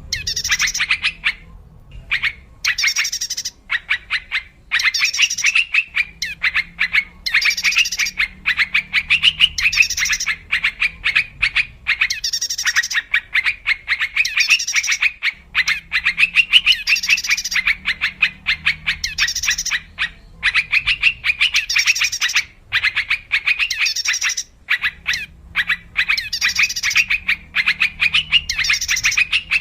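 Yellow-vented bulbul (trucuk) calls on a bird-lure recording: rapid, bubbly chattering phrases a second or two long, repeated over and over with short gaps, over a faint low hum.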